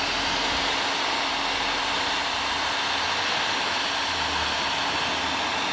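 Electric heat gun blowing hot air steadily, with a steady motor hum under the rush of air, while shrinking heat shrink tubing onto a connector.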